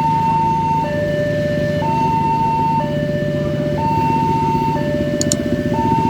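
Railway level-crossing warning alarm sounding a two-tone signal, a higher and a lower tone alternating about once a second: the warning that a train is approaching. Vehicle engines run steadily underneath.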